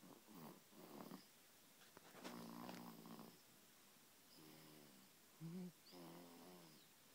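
Seven-week-old baby snoring in sleep: a few soft snuffly breaths, then a series of short pitched grunting snores, the longest about two seconds in.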